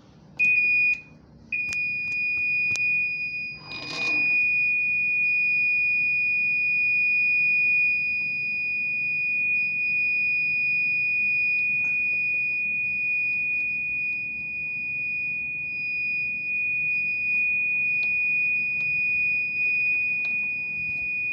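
IVAC P6000 syringe pump sounding its alarm: a short high-pitched beep, then from about a second and a half in a steady, unbroken high alarm tone.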